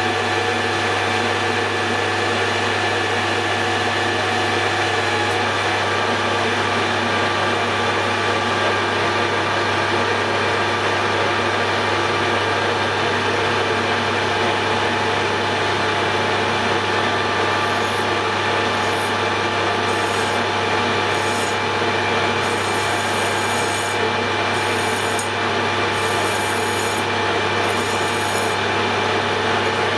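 Hare and Forbes AL335 metal lathe running steadily with its motor hum while a cutting tool radiuses the edge of the workpiece, with a series of short high hisses in the last third.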